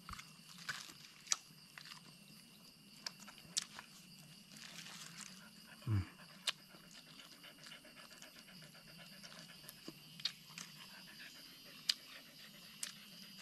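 A hunting dog eating food fed to it by hand: scattered small clicks and smacks of its mouth and teeth as it chews. A brief low grunt comes about six seconds in.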